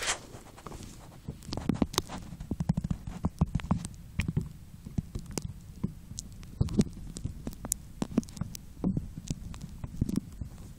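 Muffled underwater sound picked up by a phone sealed in a plastic waterproof pouch: irregular low rumbling with scattered clicks and knocks as the pouch moves and rubs in the water, after a short splash at the start as it goes under.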